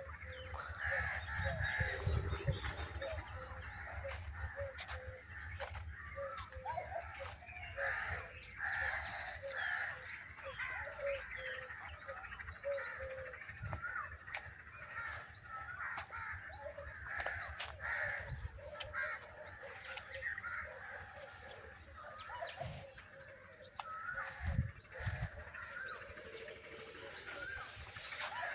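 Several birds chirping and calling at once in a continuous dawn-chorus-like mix of short high chirps and lower calls. A low rumble sounds during the first few seconds, and there are a couple of brief low thumps later on.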